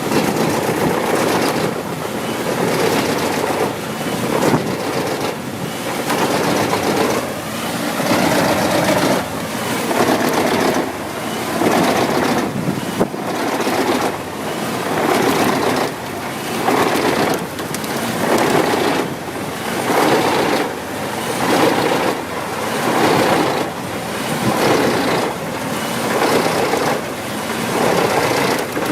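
Wood chipper shredding wood, a loud dense grinding noise that swells and eases about every two seconds as the material is fed through.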